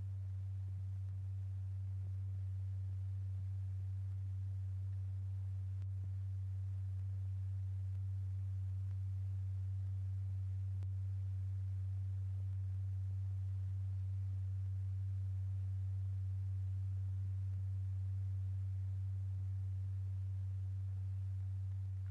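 Steady low pure tone at a single fixed pitch, the sine-wave note that drives a stretched paper diaphragm strewn with lycopodium powder to set the powder moving. It swells slightly in loudness through the middle.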